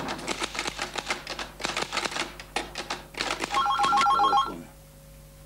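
Typewriter keys clacking in quick, irregular strokes, then a telephone rings once with a rapid electronic trill about three and a half seconds in.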